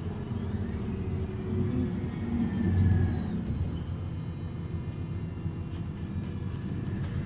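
MAN Lion's City city bus idling at a standstill: a steady low diesel rumble that swells briefly about three seconds in, with a thin high whine that rises just after the start and slowly sinks over the next few seconds.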